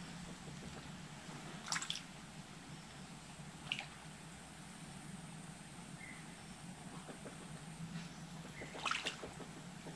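Quiet pond-side ambience: a steady low hum with three brief sharp clicks or splashes, about two seconds in, near four seconds and near nine seconds, and a few faint short chirps.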